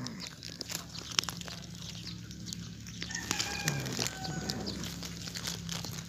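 A cat growling low and steadily while it chews a freshly caught zebra dove, with crisp crunching and tearing clicks from the bird. Around three to four seconds in, a chicken calls briefly in the background.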